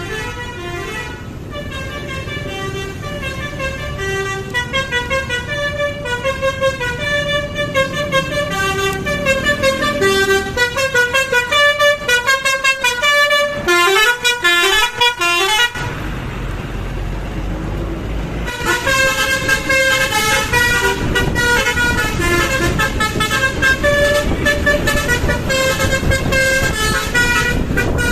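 Bus 'telolet basuri' multi-tone air horn playing a melody, note after note, with quick sliding notes just before the middle. The horn stops for about two and a half seconds, leaving a hissing rumble, then plays its tune again to the end.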